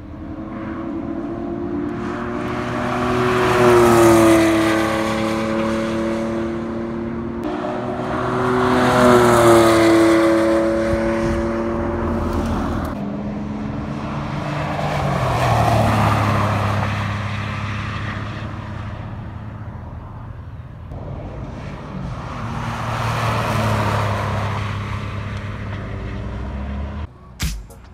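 Porsche 911 flat-six engines running hard as cars pass at speed on a racetrack: four pass-bys, each swelling and fading, the first two with a clear engine note that rises then drops as the car goes by.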